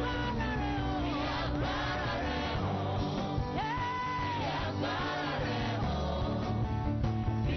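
Gospel praise-and-worship music from a live band, with a singing voice gliding over steady bass and keyboard chords, and a long held note about halfway through.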